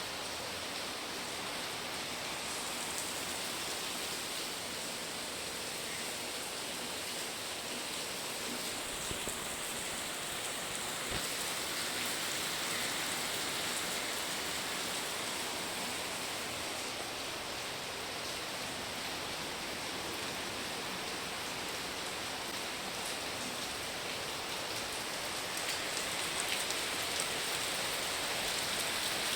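Monsoon rain falling steadily, an even wash of noise that holds at the same level throughout.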